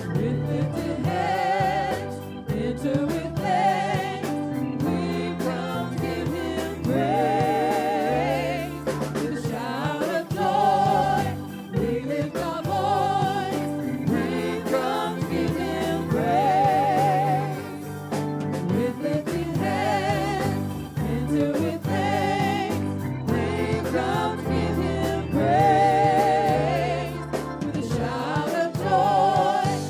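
Gospel worship song: voices singing long held notes with vibrato, in phrases, over instrumental accompaniment with a steady bass line.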